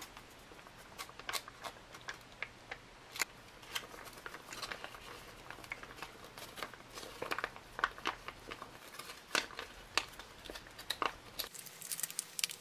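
Foil retort pouch crinkling and crackling in irregular sharp ticks as it is torn wider and squeezed to empty its contents onto a metal tray.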